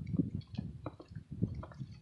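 Wet mouth sounds of someone eating candy close to the microphone: irregular soft squishes and chewing with a few small clicks.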